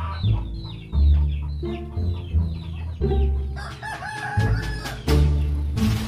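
Chickens calling: a run of rapid high falling cheeps, then a rooster crowing about four seconds in, with a short noisy burst near the end.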